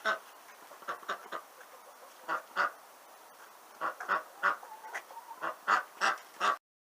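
Domestic ducks quacking: a series of short, separate quacks, some in quick pairs, cutting off suddenly near the end.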